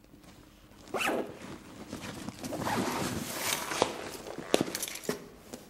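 Duffel bag being handled and lifted: a zipper-like rasp and fabric rustling that starts suddenly about a second in, with several sharp clicks in the second half.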